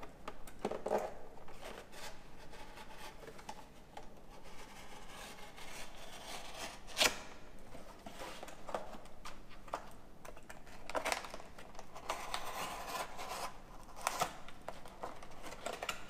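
A cardboard product box being pulled open and unfolded by hand: the card scrapes and rubs in irregular bursts, with one sharp crack about seven seconds in.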